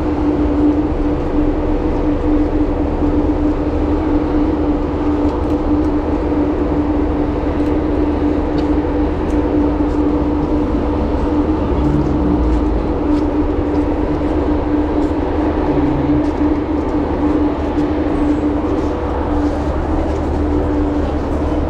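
Passenger ferry's engines and machinery running, a loud steady drone with a constant hum in it.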